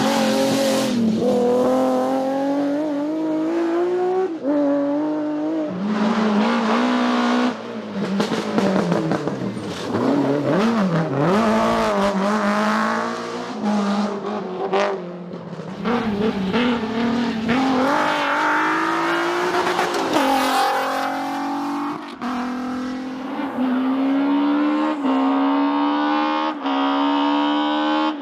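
Rally car engines revving hard through a stage, the pitch climbing and dropping with each gear change and lift. One car follows another, with abrupt cuts between clips.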